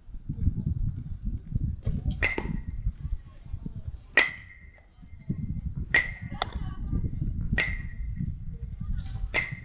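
Baseballs struck with an aluminium bat: six sharp hits, one to two seconds apart, each with a brief metallic ring, over a steady low rumble.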